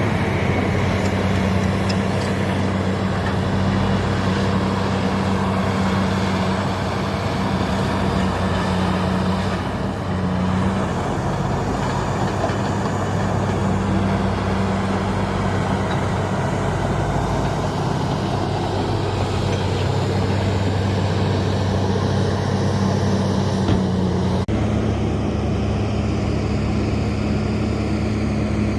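Heavy diesel earthmoving machinery running steadily, a continuous low engine drone. About 24 seconds in, the drone shifts slightly in pitch.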